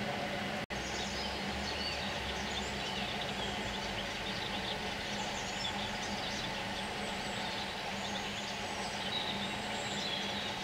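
Outdoor birdsong: many short, high bird chirps and calls over a steady background rumble with a low hum. The sound cuts out completely for an instant just under a second in.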